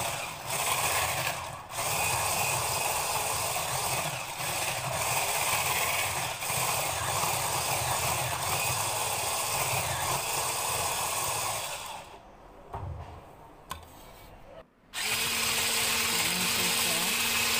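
Electric hand mixer running steadily, its beaters whirring through banana cake batter in a bowl. About twelve seconds in the sound drops away for about three seconds, then the mixer runs again with a steadier, lower hum.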